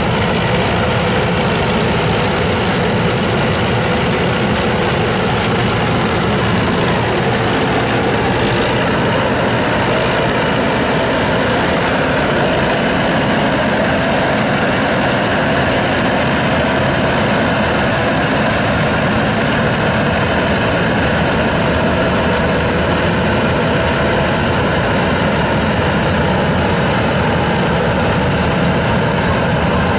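Tractor-mounted combine harvester running steadily while harvesting wheat: a loud, even mechanical drone of the engine and threshing machinery.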